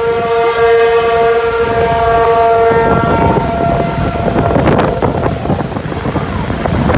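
Outdoor tornado warning siren sounding one steady tone, which fades out about three seconds in. Wind buffets the microphone, rumbling loudly through the rest.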